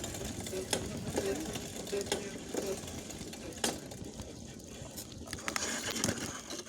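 Soyuz 24K rattling and knocking irregularly as it is ridden along; the knock is a known fault of this ride.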